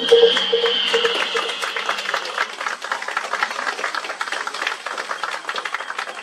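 Audience applauding, a dense, even patter of many hands clapping; music that was playing fades out about a second in.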